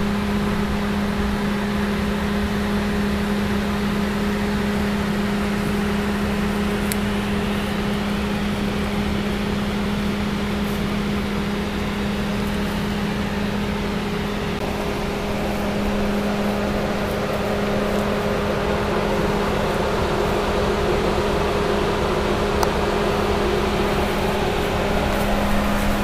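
Steady mechanical hum with one constant low pitched tone over a level hiss, unchanging throughout.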